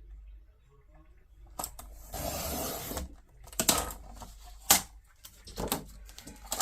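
Paper being cut and handled: a sharp click, then a cut lasting about a second a couple of seconds in, followed by several separate clicks and rustles.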